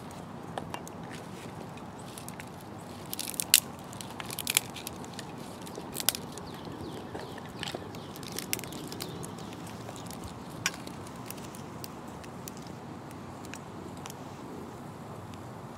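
Freshly lit pine needles and twigs crackling as they burn in a small folding metal wood stove, with a scatter of sharp pops and snaps, the loudest about three and a half seconds in, thinning out after about eleven seconds.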